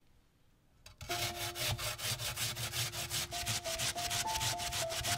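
A peeled onion being grated on a stainless steel box grater: quick, rhythmic rasping strokes, several a second, starting about a second in.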